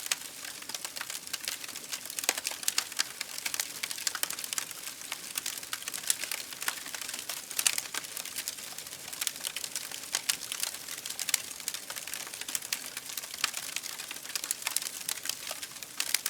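Wood campfire crackling, with dense irregular snaps and pops over a soft steady hiss of the burning fire.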